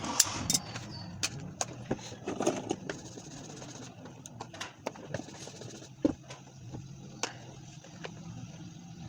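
Irregular light clicks and taps of small parts and tools being handled, over a steady low hum.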